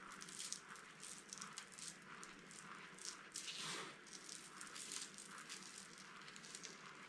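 Dry soap cubes crunching and crumbling, a run of small crisp crackles every few tenths of a second with a bigger crunch a little past the middle.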